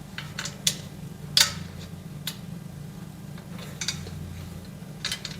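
Light metal clicks and clinks as steel shelf frame parts and screws are handled and fitted together: about eight sharp taps at uneven intervals, the loudest about a second and a half in. A low steady hum runs underneath.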